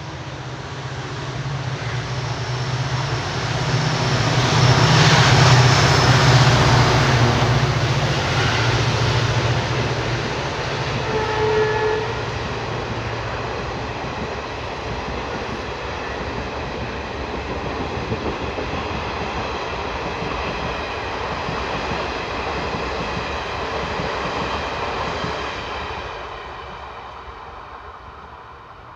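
WDP-4D diesel locomotive running through at speed, its engine drone building to the loudest point about five seconds in. The steady rumble of the express's coaches rushing past follows for some twenty seconds, fading away near the end.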